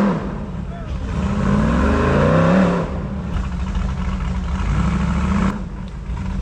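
Big-tire, high-horsepower off-road hill-climb vehicle's engine revving hard. It climbs in pitch in one surge, holds at high revs, then drops off suddenly about five and a half seconds in.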